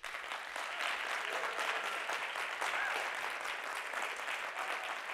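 An audience applauding steadily, a dense patter of many hands clapping.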